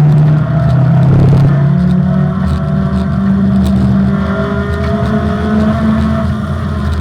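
Opel Manta rally car engine running hard under load. Its note dips briefly about a second in, then climbs to a higher pitch and holds there.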